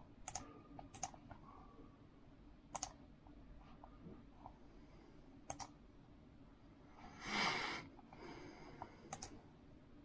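Scattered single computer-mouse clicks a second or several apart, selecting items on a web page, with a brief louder rush of noise about seven seconds in.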